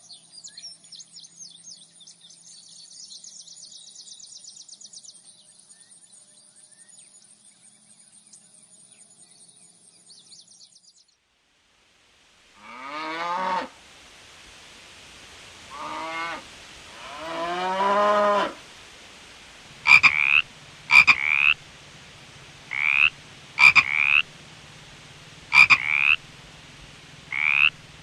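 A run of animal calls: high, fast chirping for the first ten seconds or so, then after a short break three longer calls that rise in pitch, then from about twenty seconds a frog croaking in short loud calls, about one a second.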